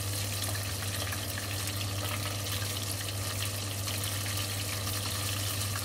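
Noodles and sliced red bell pepper sizzling in a hot pan as they are tossed with a plastic spatula: a steady hiss with fine crackling, over a steady low hum.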